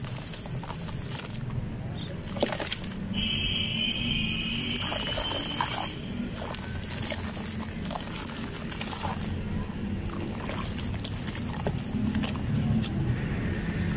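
Hands squeezing and kneading wet sand in a tub of water: squelching and sloshing, with scattered small splashes. A steady high tone sounds for about three seconds a few seconds in.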